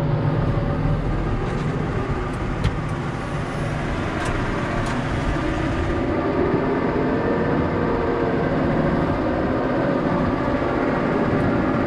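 New Holland T6.160 tractor's diesel engine running steadily, heard from inside the cab, its note rising slightly about halfway through. A few light clicks in the first half.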